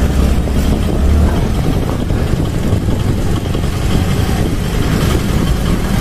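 Motorcycle engine running steadily at low road speed, heard from the rider's seat with a heavy low rumble.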